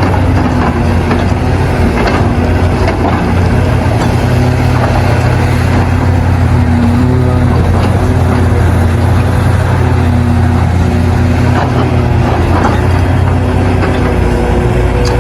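Hitachi Zaxis 670LC hydraulic mining excavator working, its diesel engine running steadily under load. A whine from the hydraulics comes and goes over the engine rumble.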